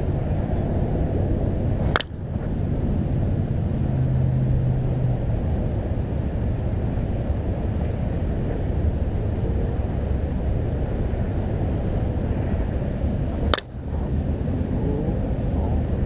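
Steady low outdoor rumble, with two sharp cracks of a senior softball bat hitting a ball, about two seconds in and again near the end.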